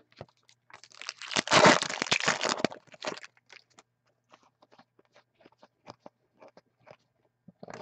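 Foil wrapper of a hockey card pack crinkling and tearing as it is ripped open for about two seconds, followed by faint scattered clicks of the cards being slid and flipped through.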